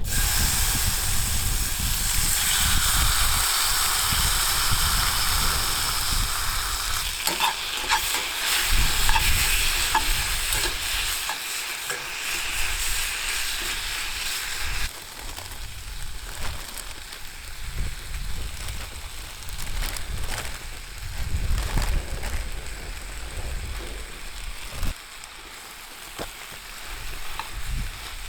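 Food sizzling in a cast-iron skillet over a small wood fire, with a few light clicks. The sizzle is loud at first and drops off sharply about halfway through.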